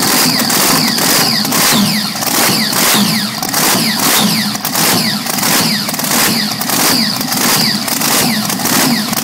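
Supercharged 510 cubic-inch Big Chief V8 hydroplane race engine with a Kobelco 14-71 blower, running on a test stand through open exhaust stubs with an even pulsing beat about twice a second and no big swells in level.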